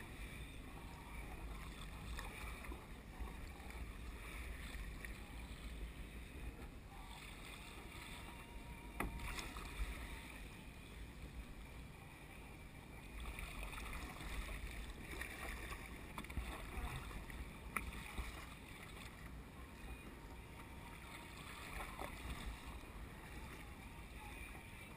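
Faint wind rumbling on the microphone and water lapping against a sit-on-top kayak's hull in open-ocean chop, with a couple of short clicks about nine and eighteen seconds in.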